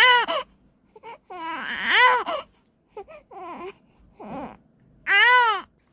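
Newborn baby crying in a string of short, rising-and-falling wails with brief pauses between them, the longest about a second and a half in.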